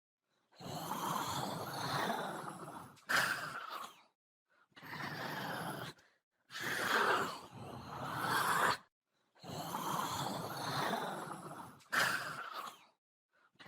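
Zombie sound effect: a voice making raspy, guttural groans and growls, about five of them, each one to three seconds long with short silent breaks between. Two short, sharper snarls stand out, about three seconds in and near the end.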